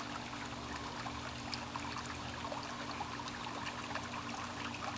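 Swimming-pool water trickling and lapping steadily, with small scattered drips and a steady low hum underneath.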